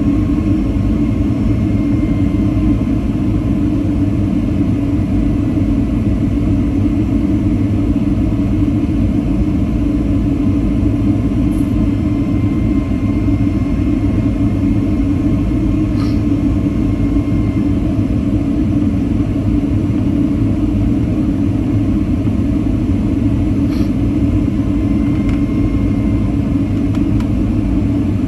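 Steady low roar of engine and airflow noise heard inside the cabin of a jet airliner on its descent. A faint high whine comes and goes, and there are a few faint clicks.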